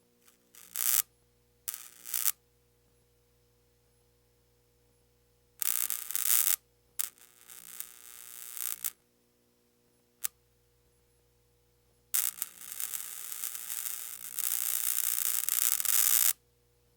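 Electrical wiring shorting out: irregular bursts of crackling, buzzing arcing, short ones at first and the longest, about four seconds, near the end. A faint low mains hum runs in the gaps, with one sharp click about ten seconds in.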